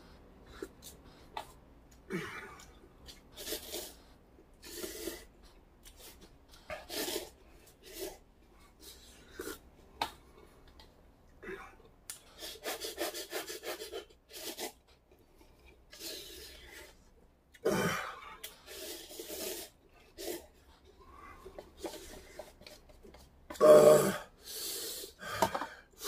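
A man eating hot cup ramen as fast as he can: irregular slurps of noodles, chewing and quick breaths, with a louder burst near the end.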